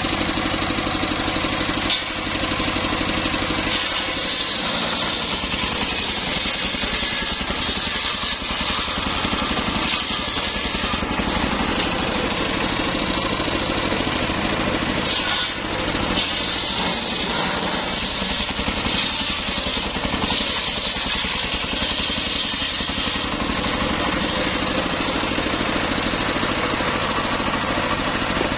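Engine-driven sawmill saw running steadily, with brief dips in level about two seconds in and again around the middle.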